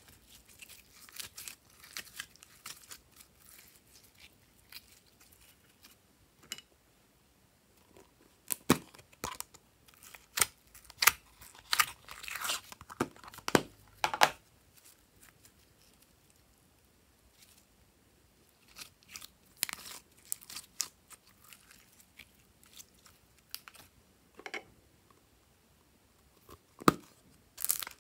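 Glossy glitter slime squeezed and stretched by hand, making scattered sticky clicks and small pops in clusters with quiet stretches between. A louder click comes near the end.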